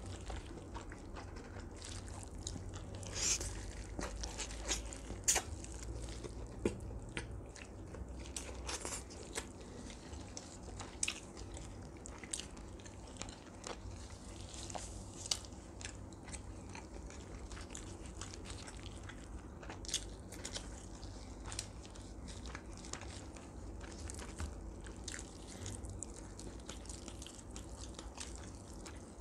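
Gloved hands tearing apart a roasted duck, with chewing: irregular small crackles and snaps as meat and skin pull away from the bones, over a low steady hum.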